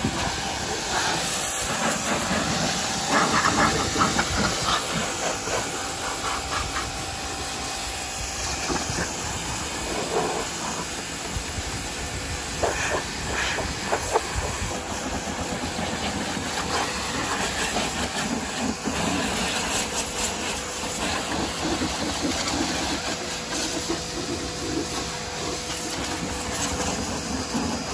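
Hyundai HYB80 pressure washer running, its high-pressure jet hissing steadily as it sprays the car's wheels and body panels.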